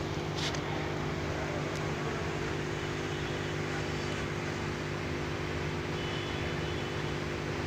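A steady low mechanical hum with a hiss over it, holding an even pitch throughout, with a brief click about half a second in.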